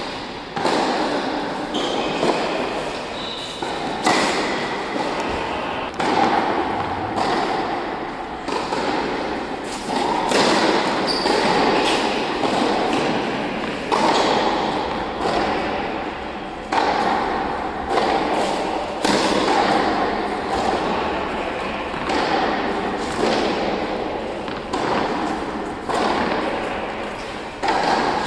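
Tennis balls bouncing on an indoor court and being struck by rackets: repeated sharp knocks about every one to two seconds, each echoing through the large hall.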